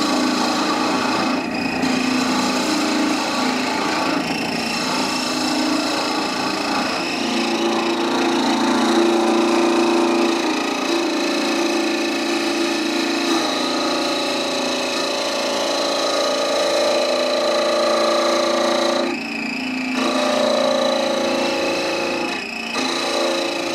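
Wood lathe running with a skew chisel cutting into the spinning wood, a steady motor hum under a rough scraping hiss of shavings coming off. The cutting noise breaks off briefly a few times as the tool is lifted.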